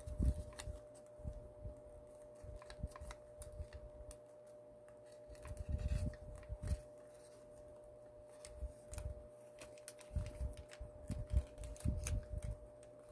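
Sheet of origami paper being folded and creased by hand: scattered soft crackles and clicks, with clusters of low bumps about six seconds in and again from about ten seconds on.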